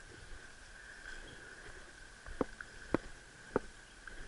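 Footsteps through brush and leaf litter: three soft steps a little over half a second apart in the second half, over a steady high-pitched hum.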